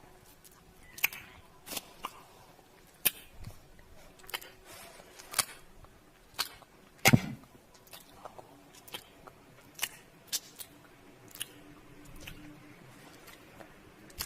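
Kissing sounds: a string of short, wet lip smacks, irregularly spaced at about one a second, with a louder one about seven seconds in.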